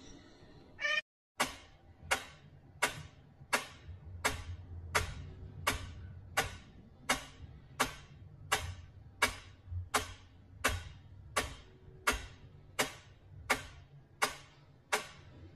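Wind-up pyramid metronome ticking steadily, a little under one and a half ticks a second, each tick a sharp click.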